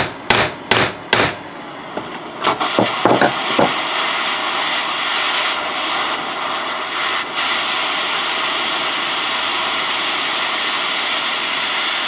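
Ball-peen hammer striking a seized steel brake bleeder in a rusty caliper: three sharp hits in the first second or so, then a few lighter ticks. From about four seconds in, a handheld propane torch hisses steadily as it heats the bleeder to free the rusted threads.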